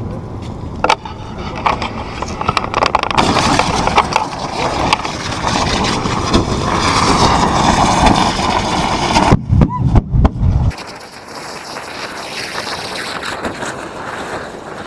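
A pyrotechnic fuse and charges burning with a dense hiss and crackle, with sharp bangs from hydrogen-filled balloons exploding. The loudest cluster of bangs comes around ten seconds in, then the sound drops to a quieter, steadier rush.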